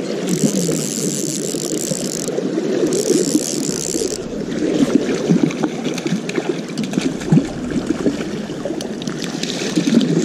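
Fly reel's drag buzzing as a hooked trout strips line, twice near the start, first for about two seconds and then for about one, with sharp starts and stops. Steady rushing creek water runs underneath, and the trout splashes at the surface near the end.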